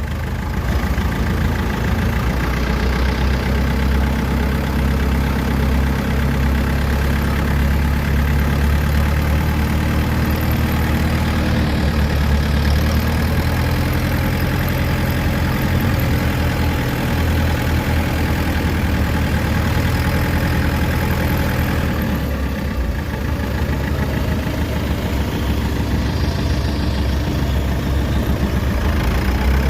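Kubota DC93 combine harvester's diesel engine running steadily under load as it tows a broken-down tracked tiller, easing off briefly about three-quarters of the way through.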